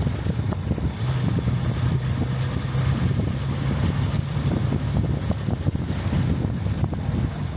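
Jaguar MkII's XK straight-six engine running steadily as the car is driven, with wind noise on the microphone.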